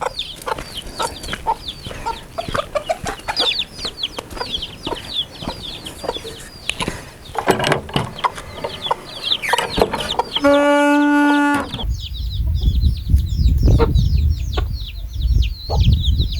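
Chickens clucking, with a constant stream of short, high, falling peeps. About two-thirds through, one steady pitched call is held for a bit over a second, and a low rumbling noise comes in after it.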